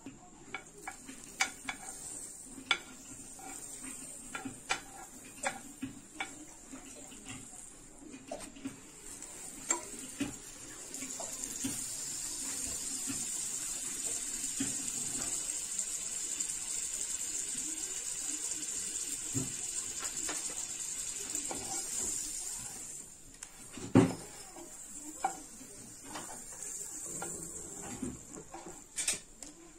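Buttered sandwich sizzling in a nonstick frying pan while a wooden spatula taps and scrapes on the pan, pressing and turning it. The clicks come thick at first, then give way to a steady sizzle through the middle; a single sharp knock comes a little past two-thirds of the way in, followed by a few more taps.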